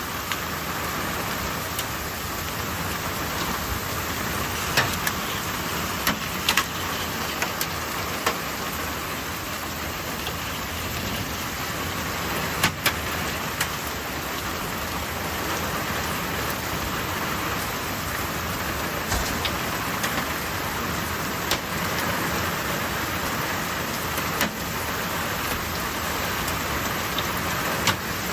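Heavy thunderstorm rain pouring steadily, with scattered sharp knocks a few to several seconds apart.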